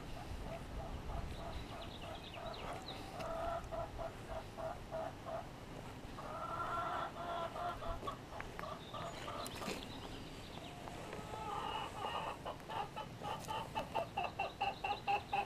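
Chickens clucking: a string of short repeated clucks that turns into a quicker, louder run of about four a second near the end.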